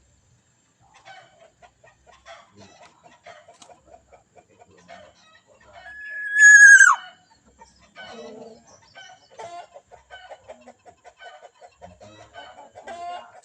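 A single loud bird call about six seconds in, a held clear tone that drops sharply at its end, over faint repeated clucking or chattering.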